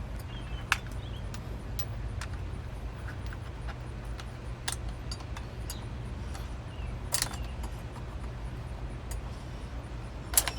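Sharp metallic clinks of hand tools and sockets being handled at the brake caliper, a few seconds apart, over a steady low hum.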